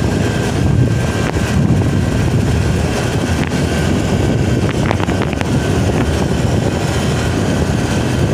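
Steady rumble of wind on the microphone and road noise from a vehicle travelling along the bridge road.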